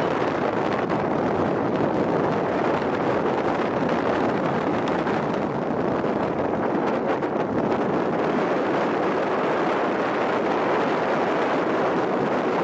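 Steady rushing noise of wind blowing over the microphone and the sea churning below, with a passenger train rolling across a railway bridge.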